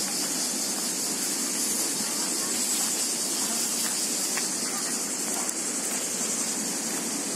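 Steady outdoor ambience: an even, high-pitched hiss over a lower, softer rushing noise, with no single sound standing out.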